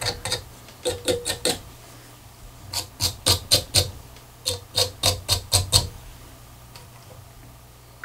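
Wire-bristle finger brush scraping over dubbing on a fly-tying hook shank, picking out the fibres: quick raspy strokes, about five a second, in short bursts with pauses between.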